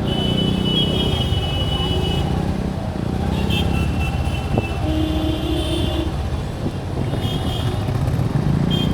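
Kawasaki Ninja 300's parallel-twin engine running as the bike rides through city traffic, amid the noise of other vehicles. A single sharp click comes about halfway through.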